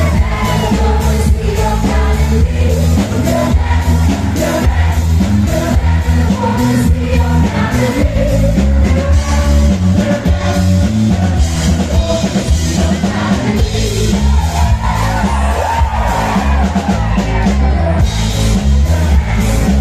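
Loud live band music played over a PA system, with a heavy, stepping bass line under a singing voice.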